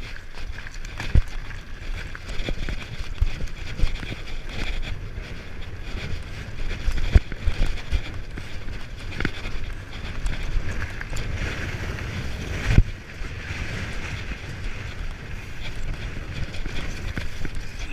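Downhill mountain bike running down a rough trail: wind buffeting the microphone, a steady rush of tyres on dirt, and several sharp knocks from the bike over bumps, the loudest about 7 and 13 seconds in.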